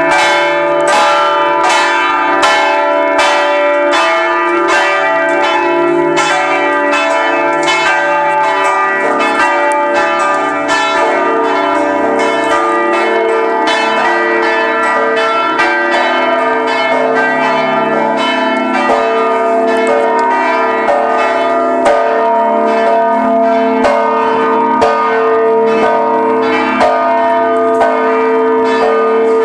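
Maltese parish church bells ringing a procession peal: several bells struck over and over in a quick, steady rhythm, their tones overlapping and ringing on without a break.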